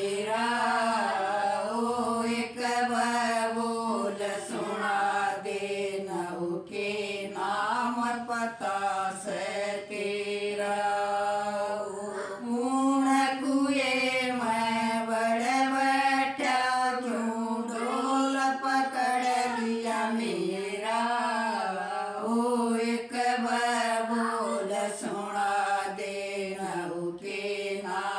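Several women singing a Haryanvi jakdi folk song together, unaccompanied, in a steady chant-like melody.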